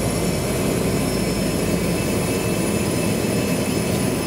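Cessna 208B Grand Caravan's Pratt & Whitney PT6A turboprop engine and propeller running steadily at taxi power, heard from inside the cabin. A high turbine whine sits over the steady drone.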